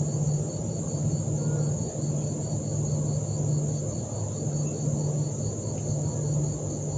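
Evening insect chorus of crickets: a steady high-pitched shrill with a regular pulsing chirp under it, over a low pulsing drone.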